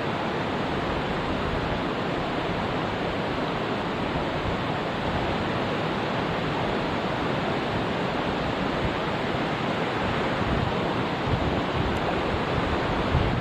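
Rushing water of a mountain stream: a steady, even rush that holds the same level throughout.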